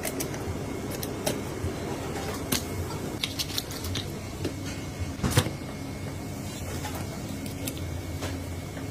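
Knife filleting a whole fish on a plastic cutting board: scattered sharp clicks and ticks as the blade meets bone and board, the loudest about five seconds in, over a steady low hum.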